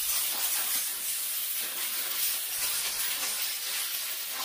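Compressed air blowing out the intake and throttle body of a Stihl MS500i chainsaw: a steady, unbroken hiss, clearing built-up dirt so none gets into the engine.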